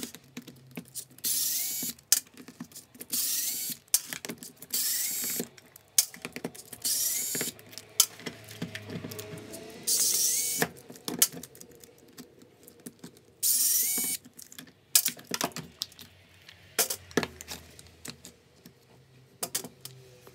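Small cordless electric screwdriver whirring in short runs of under a second, about six times, each starting with a brief rising whine, as it backs out an impact driver's housing screws. Between and after the runs come sharp clicks and clatter of screws and plastic housing parts being handled.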